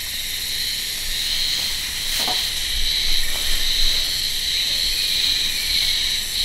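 Steady high-pitched drone of insects chirring, with two faint taps a little over two and three seconds in.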